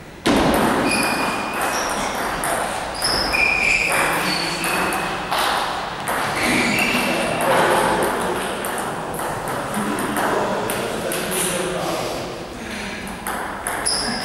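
Table tennis rally: a celluloid ball clicking back and forth off the bats and the table many times, with several short high squeaks.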